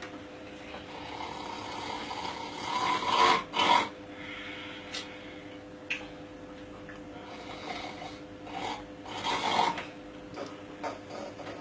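A person snoring with loud rasping snores, one bout about three seconds in and another about six seconds later.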